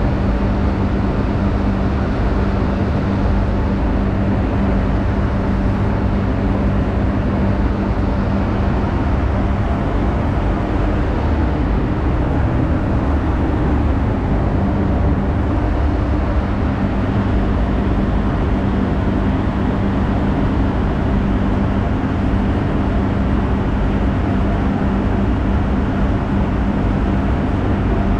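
Paint spray booth's ventilation fans running: a steady rushing air noise with a constant low hum.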